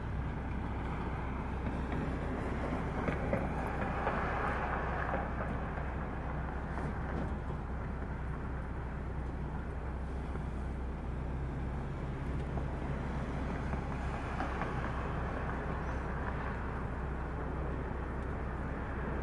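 Steady low engine rumble with road traffic noise, swelling louder twice.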